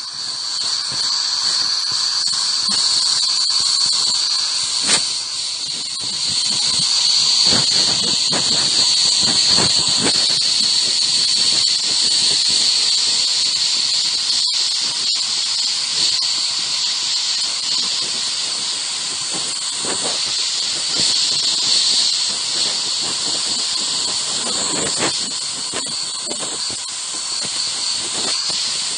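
Ghost radio app playing continuous static: a loud, steady hiss with a high thin tone running through it and a few brief clicks.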